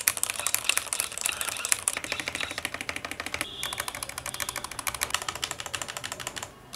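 Fast typing on a Robeetle G98 mechanical keyboard with Robeetle's own switches: a dense run of keystroke clicks, broken by a short pause about three and a half seconds in.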